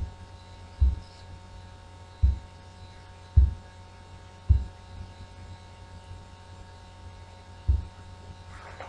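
Steady low electrical hum with about six short, dull low thumps at uneven intervals.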